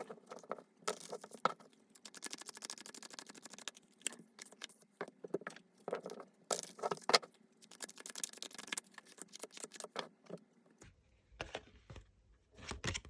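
Tarot cards being shuffled by hand: runs of rapid, dry flicking clicks, with a few separate knocks near the end.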